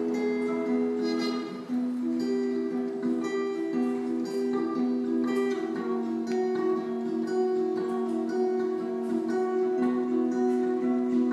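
A band playing live: a plucked string instrument picks out a tune in ringing, held notes.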